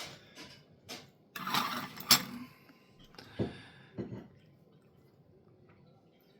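Clicks and a short scraping clatter of cutting steak and handling a plate and utensils, with one sharp click about two seconds in, then two dull thumps.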